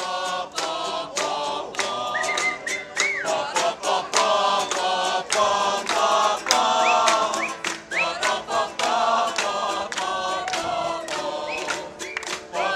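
Background music: voices singing together in a chant-like chorus over a steady percussive beat, with a few short rising slides in the melody.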